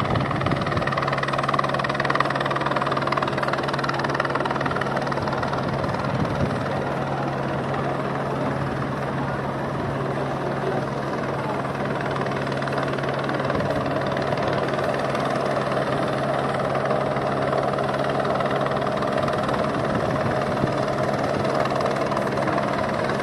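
Helicopter running steadily, a constant low engine and rotor hum over a rushing noise.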